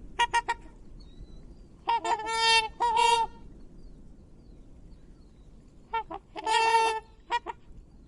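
Swan trumpeting: loud nasal calls in clusters. There are a few quick short notes at the start, two longer calls about two to three seconds in, and another group of short and long calls around six to seven seconds in.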